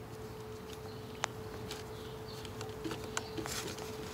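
Small screwdriver turning screws into a plastic camera mounting plate: a few faint ticks and scrapes, one sharper click about a second in, over a steady faint hum.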